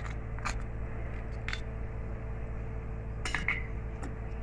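A spoon clinking a few times against a glass bowl, light sharp clinks spread through, several close together a little after three seconds, over a steady low hum.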